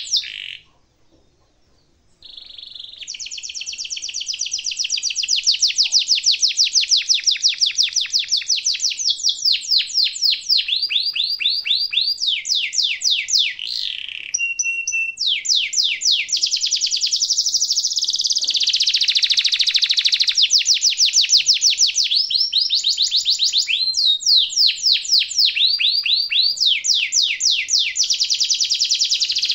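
Domestic canary singing long, fast rolling trills, each a rapid run of one high note repeated, switching to a new phrase every second or two. It falls silent for a moment near the start, then sings on almost without a break.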